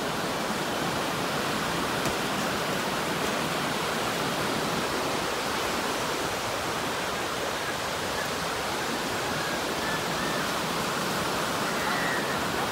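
Ocean surf breaking and washing up a sandy beach: a steady, even rush of water.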